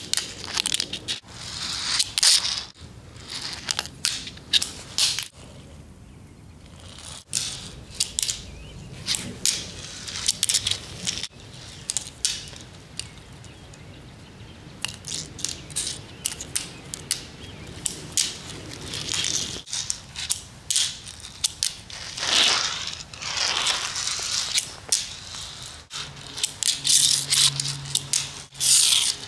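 Packaging being handled and opened by hand: irregular crinkling, rustling and crackling of plastic and paper wrapping, with a couple of longer drawn-out scrapes about three-quarters of the way through.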